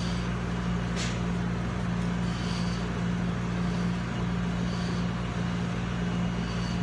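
Steady low mechanical hum of a running machine in the room, with a few faint soft clicks of someone chewing bony duck feet.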